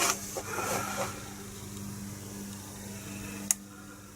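Small handling noises of kit parts and packaging being moved on a bench, with one sharp click about three and a half seconds in, over a steady low hum.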